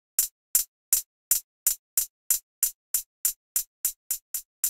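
Electronic hi-hat sample looping, about three short, crisp hits a second, played through Ableton's Width Designer rack. The rack adds a short delay on the sides to widen the mono hat into stereo, and that delay time is being turned down.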